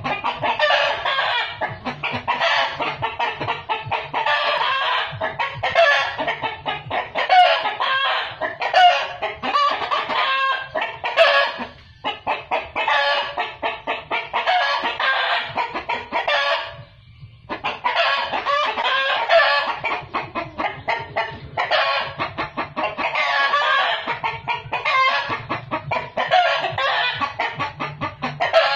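Chickens clucking in a dense, continuous run of short calls, which drops out briefly about two-thirds of the way through.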